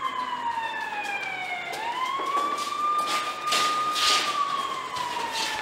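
Police siren wailing: a single tone slides slowly down, sweeps back up about two seconds in, holds high, then slides down again.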